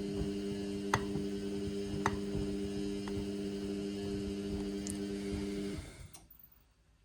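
Indesit washing machine's motor humming steadily as the drum turns during a synthetics wash, with a couple of sharp clicks. The motor stops about six seconds in, a pause in the tumbling.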